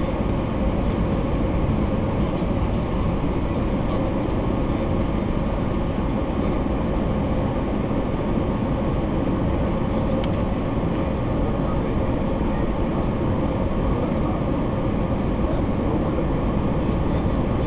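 Steady engine and airflow noise inside the cabin of an Airbus A320 on final approach for landing: an even, deep rumble with a faint steady hum running through it.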